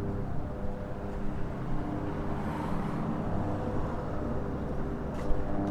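Street traffic: a steady engine rumble with a faint hum.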